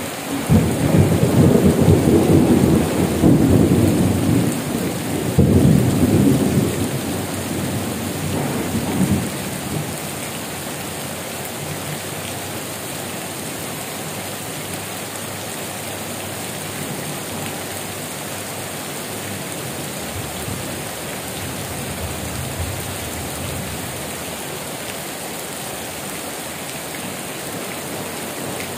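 A long roll of thunder rumbles through heavy rain, loudest just after the start with a second swell about five seconds in, and dies away by about ten seconds. Heavy rain then goes on steadily on leaves and corrugated metal roofs.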